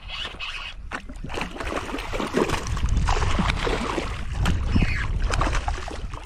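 Hooked largemouth bass thrashing and splashing at the water's surface beside a kayak, the splashing heaviest through the middle few seconds.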